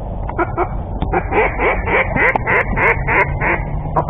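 Ducks quacking: scattered quacks throughout, then from about a second in a rapid, evenly paced run of about ten louder quacks, some four a second.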